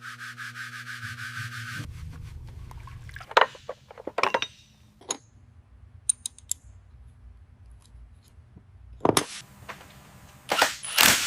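Tools and metal parts being worked during a motorcycle teardown: a steady mechanical whir for the first two seconds, then scattered sharp clicks and knocks, with loud sharp knocks near the end.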